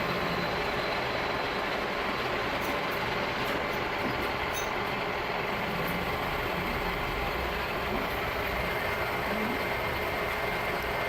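Machine-shop machinery running with a steady, even noise and a faint hum, holding level throughout.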